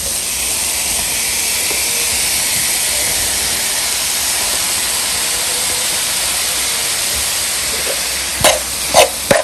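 Onion-tomato masala frying in oil in a pan, with a steady sizzling hiss that grows a little louder once sliced button mushrooms are tipped in. Near the end a metal spoon clacks sharply against the pan a few times as stirring starts.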